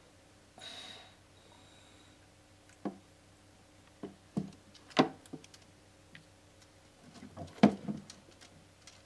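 Big-headed turtle moving about in a glass aquarium: a short rush of noise under a second in, then scattered sharp knocks and taps of its shell and claws against the tank, the loudest about five seconds in and just before eight seconds.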